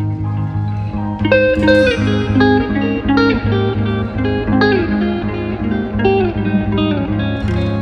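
Background music: a guitar picks out a melody with bent notes over a steady low accompaniment, starting about a second in.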